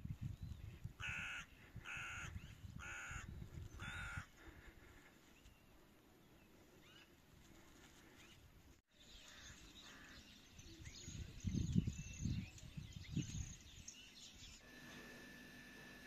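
A bird calls four times, about once a second, starting about a second in, with wind rumbling on the microphone. Later, small birds chirp over gusts of wind.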